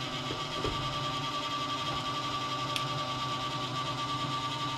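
PC case cooling fan running with a steady whine over a low hum, the noise of a fan bearing whose oil has thickened in the cold. A few faint ticks.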